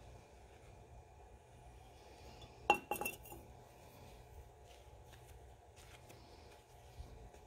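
A glass bottle and a steel knife blade clink together a little under three seconds in: two or three quick, bright clinks with a short ring. Under them is a faint, steady low hum.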